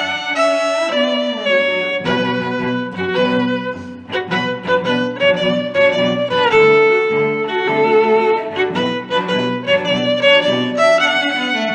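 Background music led by bowed strings: a violin playing sustained melodic notes over lower string accompaniment.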